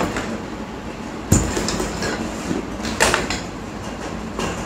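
Knocks and rustling from handling a camera bag and its gear, with a sharp knock about a second in and another about three seconds in.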